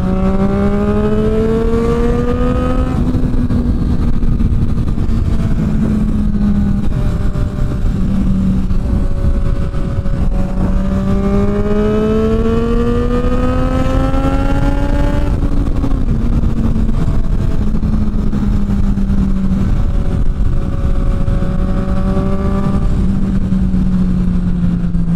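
Motorcycle engine pulling along under steady acceleration, its pitch climbing slowly three times and dropping back after each climb, over heavy wind noise on the microphone from riding.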